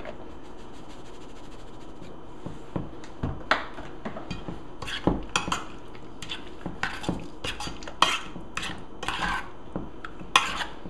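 Metal spoon clinking and scraping against a stainless steel mixing bowl while a thick salmon and mushroom-soup mixture is stirred. The irregular clinks start a couple of seconds in.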